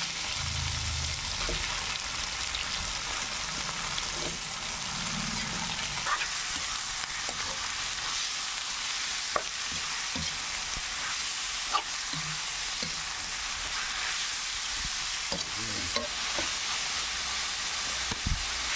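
Small pieces of pork frying in hot oil with sautéed garlic, ginger and onion: a steady sizzle, with occasional sharp clicks as the pan is stirred.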